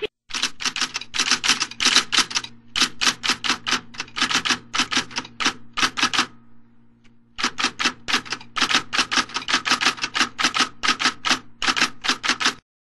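Typewriter keys clacking rapidly, about five keystrokes a second, over a steady low hum. The typing pauses for about a second midway, then runs on and stops just before the end.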